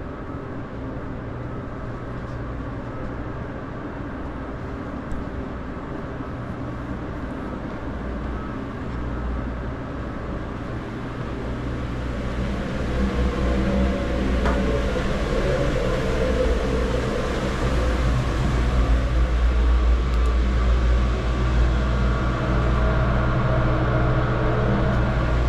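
Steady machinery hum with a deep drone and several held tones, mixed with a noisy rushing haze, growing louder about halfway through.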